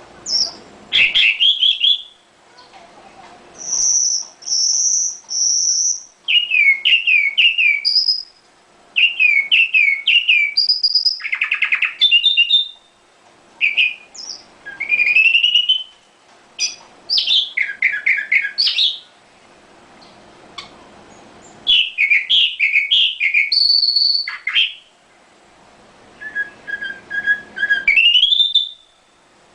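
Small songbird singing a varied song of short phrases: high held whistles, rising and falling whistles, chirps and quick trills, separated by brief pauses. This is masteran material, bird song used to teach caged songbirds.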